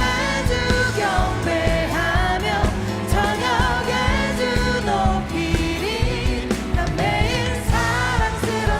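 Contemporary worship band playing a Korean praise song, with singers carrying a wavering sung melody over a steady beat and sustained bass.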